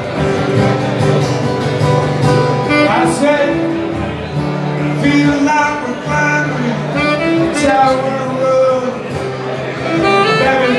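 Live music: an acoustic guitar playing with a saxophone carrying sustained, gliding melody notes over it.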